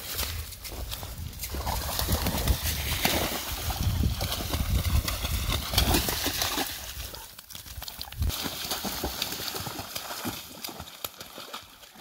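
Golden retrievers crashing through thin, half-melted pond ice, with crunching, clattering ice and splashing in the icy water, busiest and loudest in the middle.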